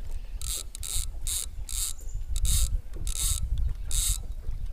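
Fishing reel ratcheting in a string of short, high-pitched bursts, about two a second and unevenly spaced.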